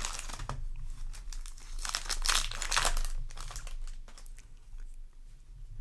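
Foil booster-pack wrapper crinkling and tearing as it is opened, in crackly bursts near the start and again around the middle, quieter near the end.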